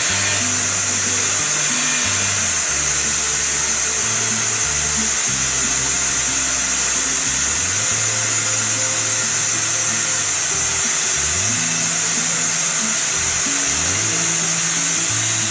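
Steady, loud rushing-air noise of running workshop machinery, with low tones underneath that hold a pitch for about a second and then step or glide to another.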